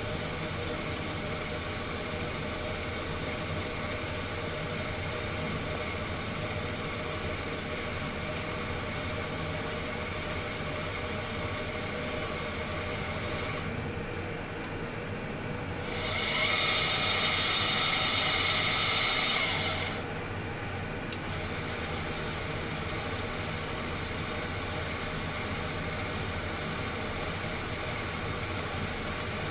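EMS 7000SMZ2 vibrating microtome running automatically in repeat mode, its motors giving a steady hum and whine as the vibrating ceramic blade sections an agarose block. About halfway through, a louder whirring lasts about three seconds, at the point where one slicing cycle ends and the next begins.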